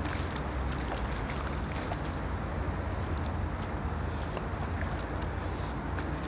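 Steady low wind noise on the camera's microphone, an even rush with no distinct events in it.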